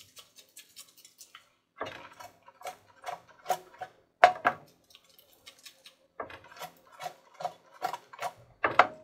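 Sweet potato fries being tossed in a pot: light clicks at first, then repeated bursts of knocking and rattling as the pot is shaken.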